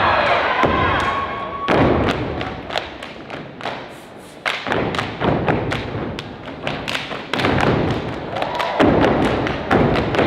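Step team stepping: rapid, rhythmic foot stomps and hand claps and slaps.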